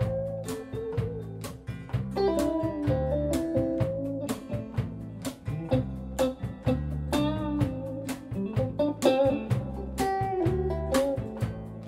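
Live acoustic band playing an instrumental passage. Acoustic guitar, a small plucked string instrument and electric bass play over a steady beat, with a picked melody line on top.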